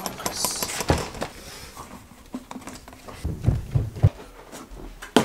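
Handling noise of someone coming indoors through a door: scattered clicks and knocks, then a run of dull footstep thuds about three seconds in, and a sharp click near the end.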